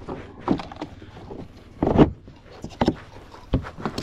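Several clunks and knocks of a snowmobile's plastic hood and body panels being handled and pulled open, the loudest about two seconds in.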